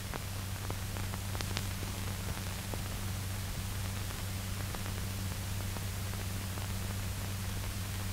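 Steady hiss and low hum of an old film soundtrack with no programme sound yet, with a few faint clicks and pops in the first couple of seconds.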